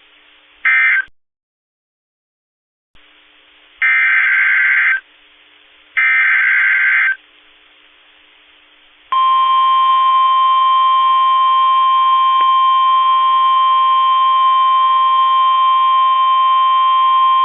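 NOAA Weather Radio Emergency Alert System transmission. A short screeching data burst, then a couple of seconds of dead silence, then two one-second SAME header data bursts about a second apart. About nine seconds in, the steady 1050 Hz weather radio attention tone starts and holds for about nine seconds.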